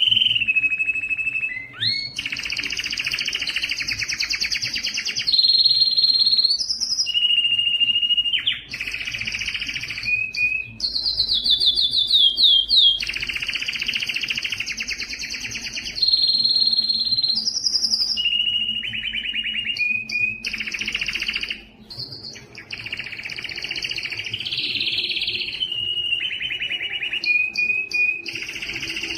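Timbrado canary singing a long song of rapid trills and rolls alternating with held whistled notes, with a run of quickly falling notes about twelve seconds in. A faint steady low hum lies underneath.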